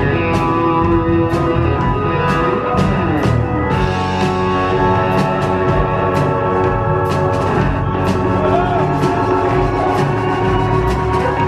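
Rock band playing live in an instrumental passage with no singing: sustained chords over drums, with cymbals struck in a steady beat.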